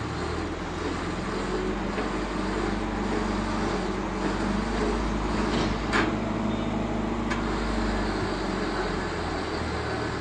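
A steady low motor hum under a wash of street noise, with one sharp click about six seconds in.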